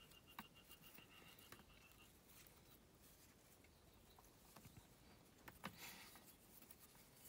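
Near silence with faint rustling and a few soft taps of satin cord being pulled and handled between the fingers.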